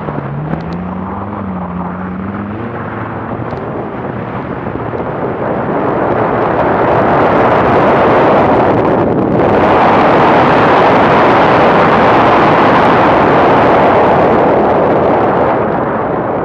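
BMW car driven hard on a snowy track, heard from a bonnet-mounted camera: the engine note rises at first, then a dense rush of engine, tyre and wind noise builds from about six seconds in and stays loud. It dips briefly about nine seconds in and eases off near the end.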